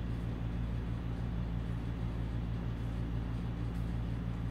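Steady low hum over an even noise, constant throughout: a wall-mounted split air conditioner running.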